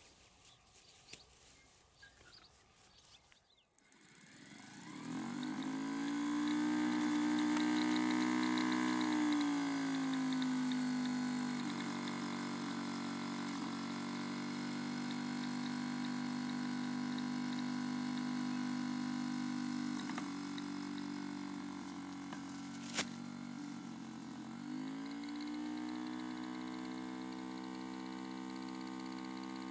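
BullX Deluxe lure machine's motor spinning up about four seconds in and then running steadily, hauling the lure round a continuous loop line on pulley wheels. Its pitch sags and recovers twice as the load on the line changes, and there is a single sharp click near the end.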